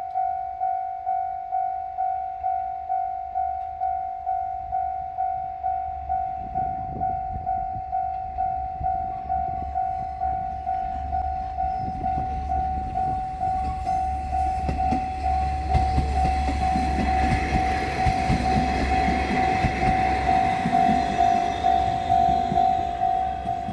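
Level-crossing warning bell ringing steadily at about two strikes a second, while a JR Shikoku diesel railcar's engine and wheels grow louder from several seconds in and pass close by, loudest in the second half.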